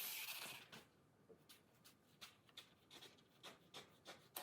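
Faint, quick snips of scissors cutting through two stacked foam sheets, roughly two to three short clicks a second.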